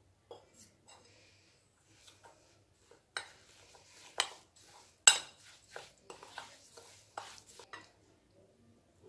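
Steel spoon stirring and scraping a coarse spice-and-mustard-oil mixture in a bowl, with a run of sharp clinks and knocks of the spoon against the bowl. The clinks come sparsely at first and thicken from about three seconds in, the loudest a little past halfway.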